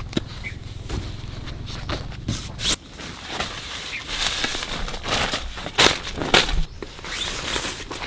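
Irregular rustling, scraping and crackling of something being handled, with a few sharp clicks or snaps; the loudest come near the middle and about three-quarters of the way through.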